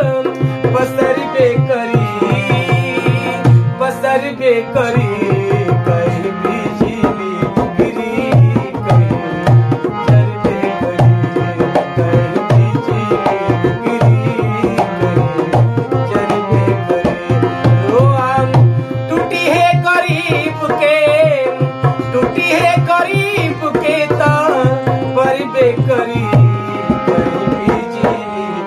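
Dholak and harmonium playing together: the dholak keeps a steady, fast rhythm of low strokes under the harmonium's sustained melody.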